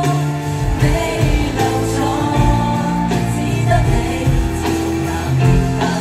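Live pop music heard over an arena's PA from the audience: several voices singing a held melody over a bass line and drum hits.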